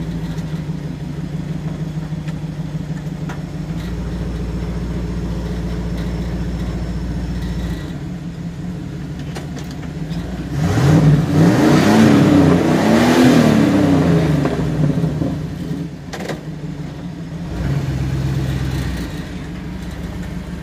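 Vehicle engine running while driving through soft beach sand, heard from inside the cab. About ten seconds in it revs up and falls back twice, the loudest part, then settles to a steady run.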